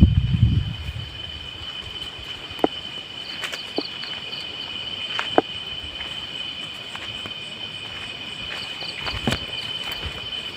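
Night insects trilling in a steady high chorus, with a faster pulsing call from another insect twice. A few sharp clicks and soft low thumps from footsteps and handling come through, the heaviest right at the start.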